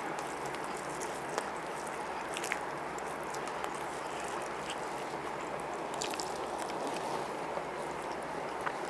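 A steady hiss of room noise, with a few faint, scattered clicks and squelches from hands mixing and eating biryani rice off banana leaves.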